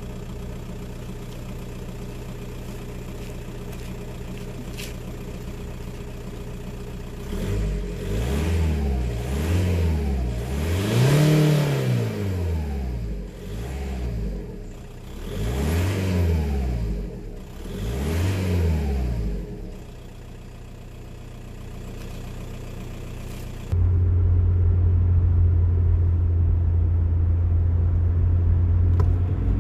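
A VW 1.9 TDI PD130 (ASZ) four-cylinder pumpe-düse diesel idles steadily, then is blipped through a series of free revs, each rising and falling back. It then settles to idle. Near the end the sound cuts abruptly to a louder, steady idle.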